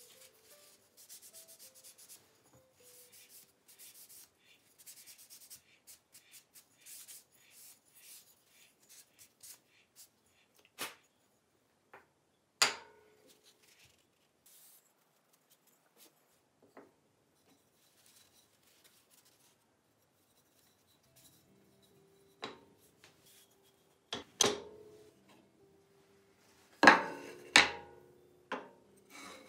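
A cloth rubbing over pallet-wood pieces in quick, faint strokes as a finish is wiped on, for the first ten seconds or so. After that, wooden parts are knocked and set down on a wooden table, a few sharp knocks at a time, the loudest near the end.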